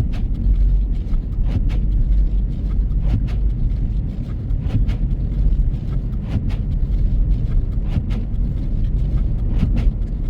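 Car driving on a snow-covered road, heard from inside the cabin: a steady low rumble of engine and tyres, with scattered short knocks and clicks at irregular intervals.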